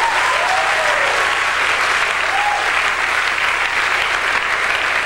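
Audience applauding steadily after a stand-up punchline, with a couple of brief voices calling out over the clapping.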